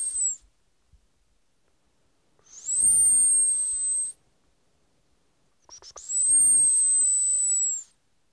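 A man whistling long, high, steady notes with breath hiss under them. One note ends just after the start, then two more follow, each lasting about a second and a half to two seconds, separated by silence. Each note slides up briefly at the start and drops off at the end, with small mouth clicks just before the last one.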